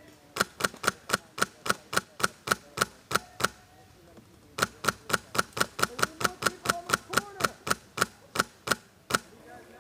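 Airsoft rifle firing rapid semi-automatic shots, evenly spaced at about five a second, in two long strings with a pause of about a second between them.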